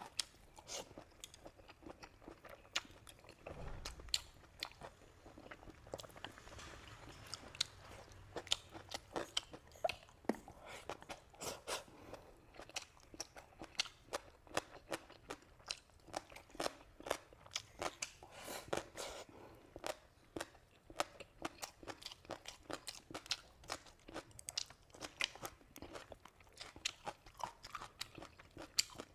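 Close-up chewing and crunching of food: a dense, irregular run of short crisp clicks, several a second, as the food is bitten and chewed.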